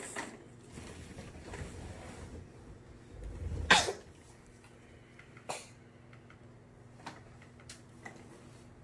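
A baby sneezing once, sharply, a little under four seconds in, after a short rising breath. A few faint clicks and taps follow.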